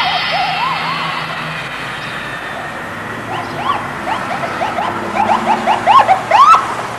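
Title-sequence sound effects: a hiss that fades over the first few seconds. Under it comes a run of short rising-and-falling, siren-like whoops that come quicker and louder toward the end.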